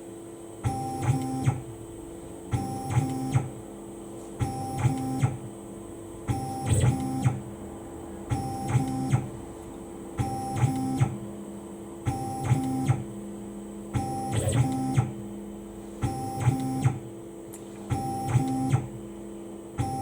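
CNC mill's Z-axis drive cycling the spindle down onto the tool length setter and back up, repeated for a repeatability test: a short motor whir about every two seconds over a steady machine hum.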